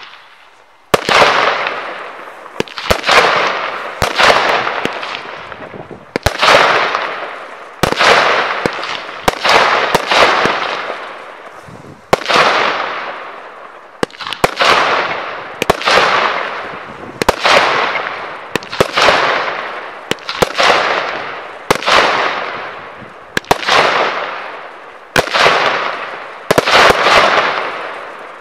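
Celtic Fireworks 'Red Mist' firework cake firing about twenty shots, one every second or two. Each shot is a sharp report followed by a crackling hiss that fades away.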